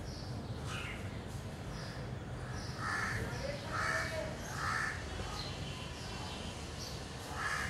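A bird giving short, harsh caw-like calls, four times, over a steady background hiss.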